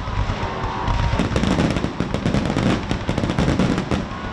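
Fireworks display: a dense, rapid run of crackling pops and bangs over a low rumble, going on without a break.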